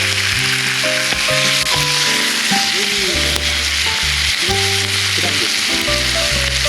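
Food sizzling in a hot pan, a steady even hiss, under background music with a bass line and a simple melody.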